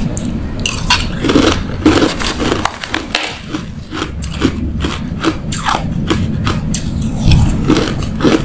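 Crushed ice being bitten and chewed close to the microphone: a dense, irregular run of sharp crunches and cracks.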